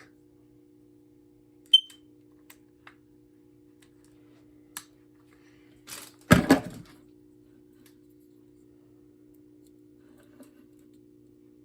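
Hardwired smoke alarm giving one short high chirp about two seconds in, over a steady low electrical hum, with a few faint clicks and one loud clunk of handling around six seconds in.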